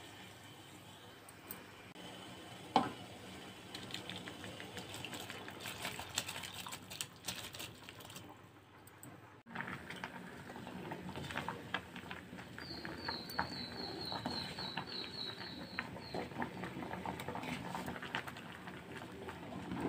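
Water swirled in a steel pot with a single sharp knock about three seconds in; after a cut about halfway through, basmati rice boiling in the pot, bubbling and crackling as a ladle stirs it.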